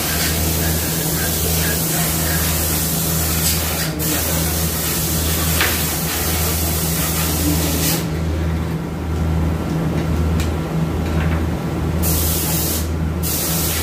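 A steady low machine hum with a slight regular pulse, under a constant hiss, with a couple of faint clicks.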